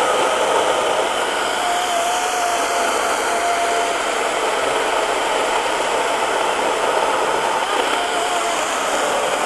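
EGO 56V brushless 16-inch chainsaw cutting steadily through a thick log, its chain running under load with the bucking spike dug in and levered. The motor is pushed just far enough that its speed starts to sag while the chain keeps moving and cutting big chips.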